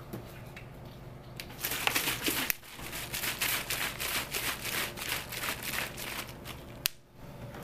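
Thin plastic drink bottle crinkling as it is handled and shaken close to the microphone. It is a dense, rapid crackling that starts about a second and a half in and stops about a second before the end.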